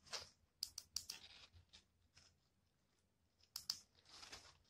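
Faint handling noises: a few sharp clicks and short crinkly rustles near the start, again about three and a half seconds in, and a short rustle just after.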